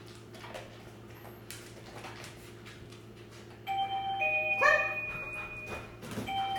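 A wireless doorbell plays its multi-note chime, starting a little over halfway in. It is the cue for the dog to go to its place bed. A dog gives one short bark during the chime.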